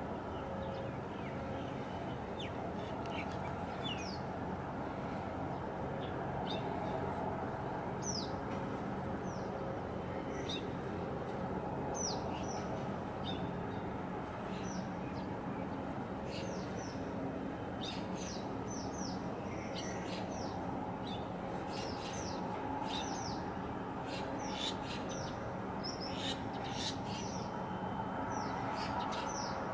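Small birds chirping over a steady low rumble: many short, high chirps, coming more often in the second half.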